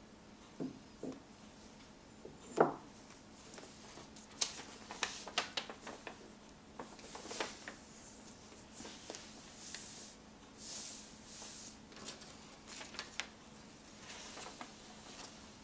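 Large paper road map being handled and lifted, its sheet crinkling and rustling in a run of crisp rustles. A few soft knocks come near the start, the loudest about two and a half seconds in.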